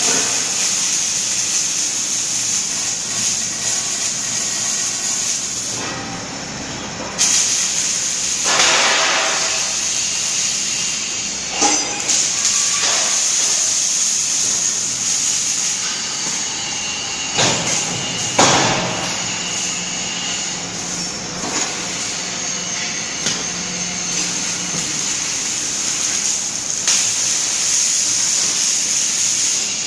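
Honyen 6-axis robot's torch at work: a loud, steady hiss. It dips briefly about six seconds in, and a few sharp pops come later.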